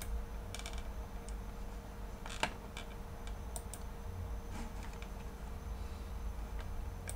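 Sparse, irregular clicks and key taps from a computer keyboard, one a little louder about two and a half seconds in, over a faint steady hum.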